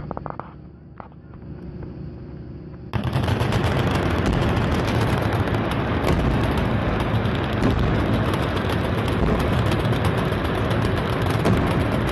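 Many machine guns firing at once in a dense, continuous barrage that starts abruptly about three seconds in and keeps going without a break.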